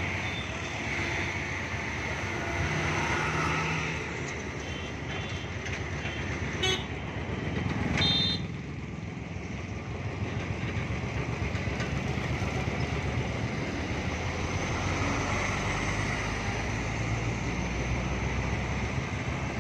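Heavy road traffic: truck and motorcycle engines running and tyres rolling past, with horn toots a few times, the loudest a short horn blast about eight seconds in.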